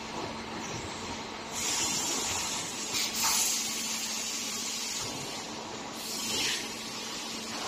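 Compressed air hissing from a sofa compression roll packing machine, in bursts: a long one starting about a second and a half in, with a short break near three seconds, and a shorter one near six and a half seconds. A steady machine hum runs underneath.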